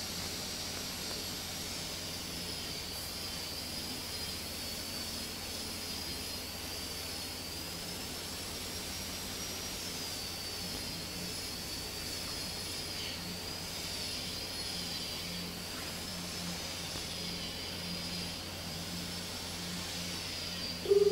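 Steady background hiss and low hum with a faint, wavering high whine; a loud steady tone cuts in right at the end.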